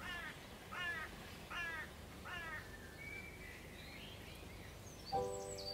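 A crow cawing four times, evenly spaced about a second apart, with faint chirps of other birds after. Near the end a held chord of steady tones starts.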